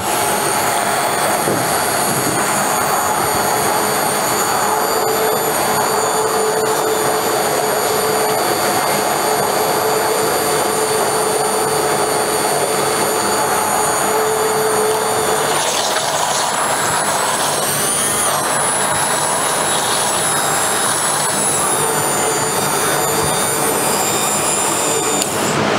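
Bosch hand blender running steadily in a jar of milk and vanilla ice cream powder, mixing it into a liquid ice cream mix, with a steady motor whine. The whine rises in pitch briefly about two-thirds of the way through, and the blender switches off near the end.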